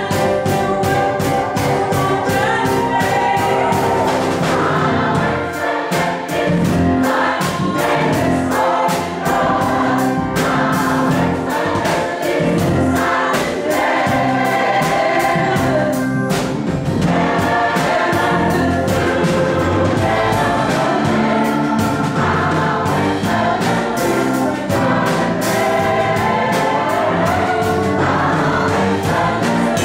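Gospel choir singing with a female soloist on a microphone, backed by a band with a steady drum beat.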